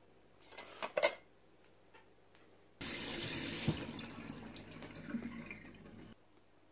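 A couple of light knocks about a second in, then a kitchen tap is turned on and runs into the sink for about three seconds before it is shut off abruptly.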